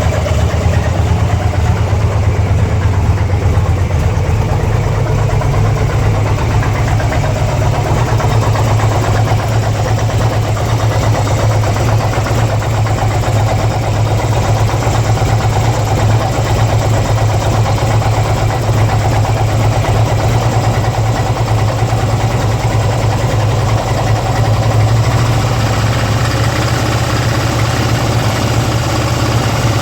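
2002 Harley-Davidson Ultra's fuel-injected Twin Cam V-twin idling steadily, with an unidentified mechanical noise from the engine that the owner cannot trace.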